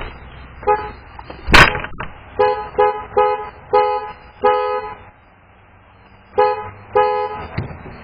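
Car horn honked in about eight short toots, each sounding two notes together, in quick bursts with a pause of about a second near the middle. A single sharp bang about one and a half seconds in is louder than the horn.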